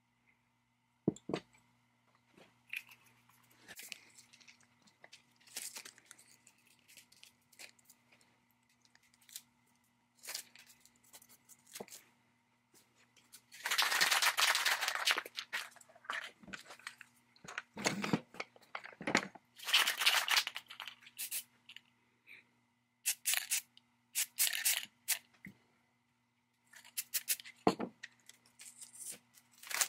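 Handling noises from a small metal engine-powered hand drill being moved and turned over on a wooden workbench: scattered knocks, clicks and scrapes. The loudest is a longer scraping, tearing-like stretch about halfway through.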